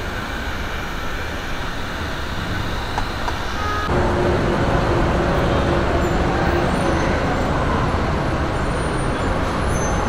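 Steady road traffic noise from cars and SUVs on a busy roadway, growing louder and fuller about four seconds in.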